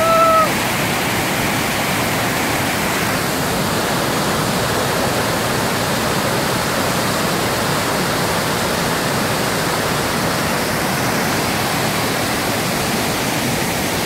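Waterfall plunging onto rocks: a steady, unbroken rush of water. A brief high-pitched tone sounds right at the start, over the water.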